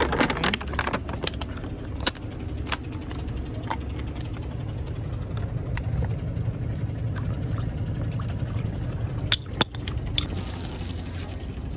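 Plastic bag crinkling as a plastic milk bottle is pulled out, then milk poured from the bottle into a small terracotta bowl, with a few sharp clicks and a short hiss near the end. A steady low rumble runs underneath.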